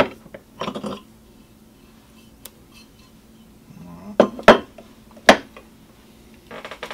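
Sharp metallic clinks and knocks of aluminium soft-plastic bait injection mold plates being handled and pulled apart, a few separate strikes with the loudest pair about four and a half and five seconds in.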